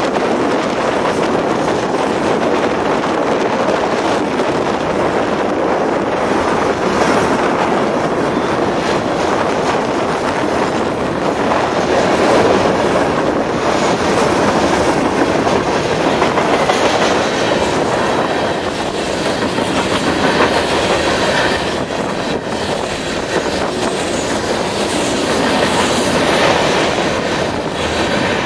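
Freight train of tank cars rolling past close by: a steady rumble and clatter of steel wheels on the rails.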